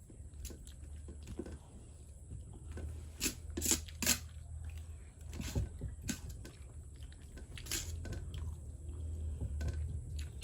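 Close-up chewing of fried noodles, with irregular sharp mouth smacks and clicks over a steady low hum.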